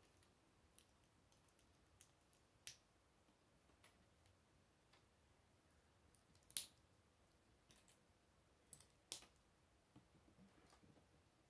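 Small plastic Lego bricks and plates clicking as they are pressed together and handled: scattered faint clicks, the sharpest about two-thirds of the way through.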